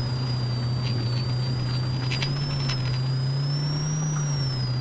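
Polaris RZR Pro R's 2.0-litre four-cylinder engine running at a steady cruise on a dirt trail, its note drifting slightly up and down with the throttle. A thin high whine rises and falls along with it, and a few faint ticks come through.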